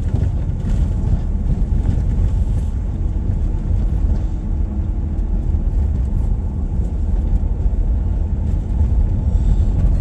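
A car driving along, heard from inside the cabin: a steady low rumble of road and engine noise.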